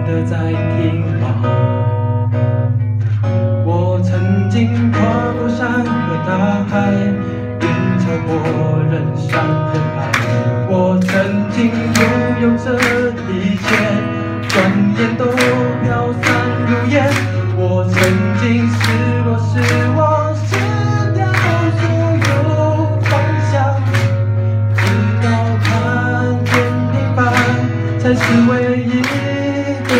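Live acoustic music: two acoustic guitars strum a steady rhythm, with a melody line over them and a steady low hum underneath.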